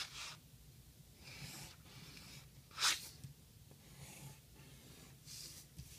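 Pencil drawing on paper: a few soft scratchy strokes about a second apart, the loudest about halfway through.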